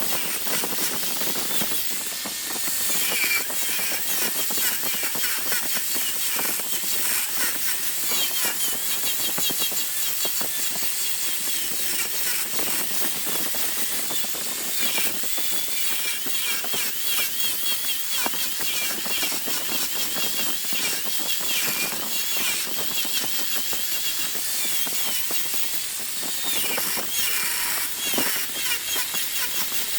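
Turning tool cutting a spinning wood blank on a large wood lathe: a steady hissing scrape with dense rapid ticks and a wavering high whine.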